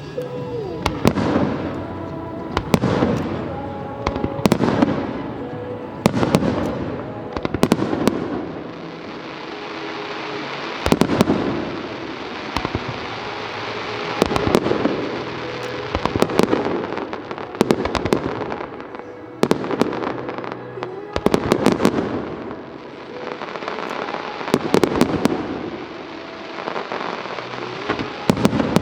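A fireworks display: shells bursting one after another, sharp bangs every second or two, often in quick clusters. Music plays underneath.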